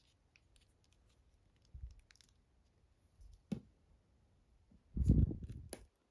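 Small plastic action figure being handled and stood on a wooden tabletop: faint clicks of plastic parts and a few soft knocks, the loudest a dull knock with rustle about five seconds in.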